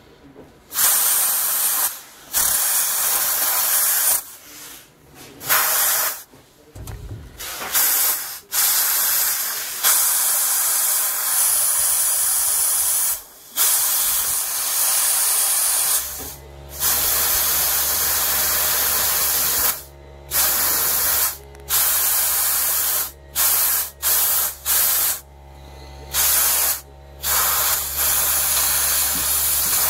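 Compressed air blasting into the back of a seized motorcycle front brake caliper to push its pistons out: loud hissing blasts, short and long, cut on and off many times. A steady low hum joins about halfway through.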